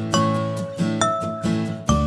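Background music: a light melody of plucked notes, struck several times a second. A deep bass note comes in near the end.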